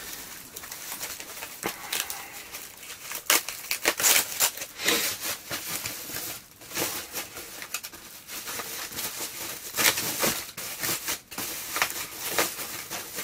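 White plastic packaging crinkling and rustling in the hands as the desoldering station's metal iron stand is unwrapped, in irregular crackling bursts.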